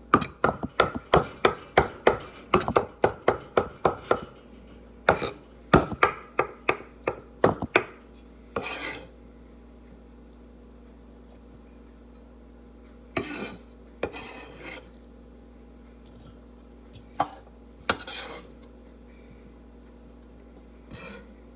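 Chef's knife chopping hard-boiled eggs on a wooden cutting board: quick knocks of the blade on the board, about four a second, in two runs over the first eight seconds. After that come a few separate scraping sweeps as the chopped egg is gathered off the board.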